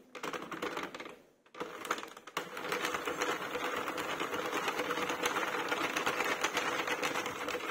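Plastic circular knitting machine being cranked round, its needles clicking rapidly over the cam track as it knits a round of two-colour Fair Isle. A few light clicks at first, then from about a second and a half in a steady, fast clatter.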